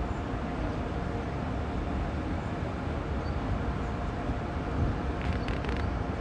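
Steady low rumble and hum of a Taiwan Railway EMU500-series electric commuter train standing at the platform, with a faint steady tone. A few sharp clicks come about five seconds in.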